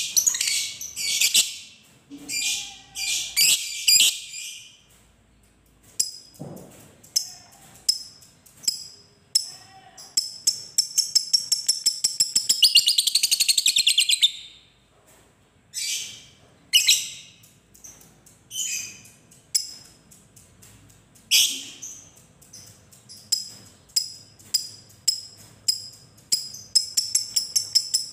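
Fischer's lovebird calling: sharp, very high chirps in short bursts. About halfway through comes a long rapid chattering trill, the "ngekek" song, lasting about four seconds and rising then falling in pitch. Another fast run of chirps comes near the end.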